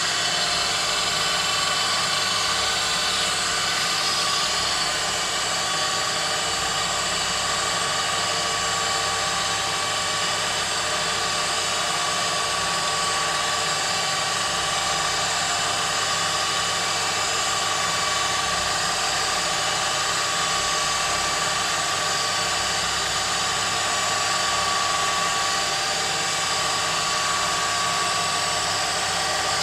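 Milling machine spindle running steadily with a multi-tone whine as a small tungsten drill bit bores into a broken M4 steel bolt in a cast throttle body.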